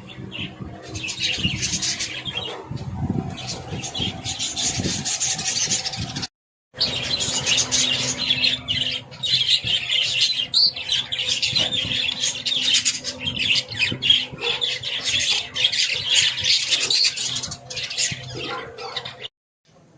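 A crowd of budgerigars chattering and squawking without pause, a dense mass of high chirps. It cuts out briefly a little after six seconds in and stops about a second before the end.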